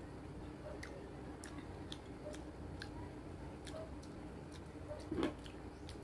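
Close-up eating sounds of someone chewing soft fruit: wet mouth clicks and smacks several times a second over a low steady hum, with a louder short knock about five seconds in.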